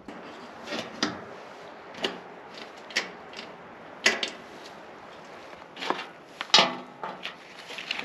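Scattered sharp clicks and clunks with pauses between them, from hands working on a riding lawn mower, including its ignition key being turned. No engine cranks or runs; the battery is reported as shot.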